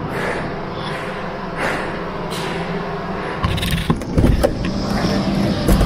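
Metal clunks as a roof hatch's latch is worked and the hatch pushed open, several knocks in the second half, over a steady rumble.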